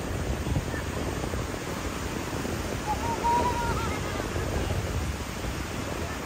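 Ocean surf washing onto a beach, a steady rushing noise. A brief high-pitched call cuts through about three seconds in.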